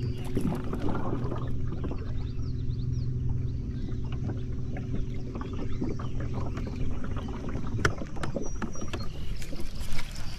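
Boat's electric trolling motor running off a battery pack, a steady hum that fades out about seven seconds in, with scattered light clicks and knocks.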